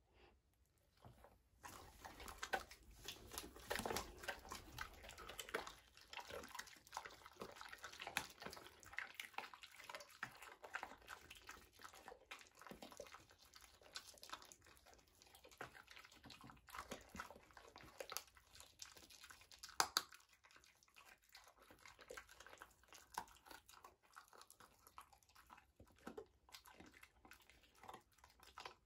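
Two German Shepherd dogs chewing and crunching food, with wet smacking and licking, starting a second or two in; the loudest bites come about four seconds in and again about twenty seconds in.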